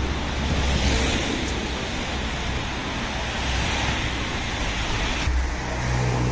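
Outdoor street traffic noise: a steady rush with a low rumble. About five seconds in, the hiss eases and a low engine hum with even overtones comes in.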